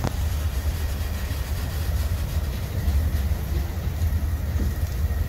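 Freight train's tank cars rolling past close by: a steady low rumble of steel wheels on the rails.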